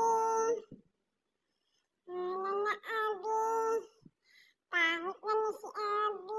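Shih Tzu giving long, drawn-out howling whines in a sing-song run of notes: one ending about half a second in, a group from about two to four seconds, and another starting near five seconds.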